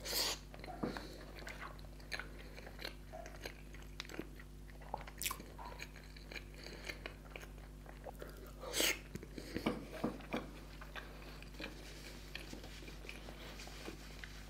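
Close-miked eating sounds from chewing gulab jamun, with many small mouth clicks and a louder bite about nine seconds in. A faint steady electrical hum runs underneath.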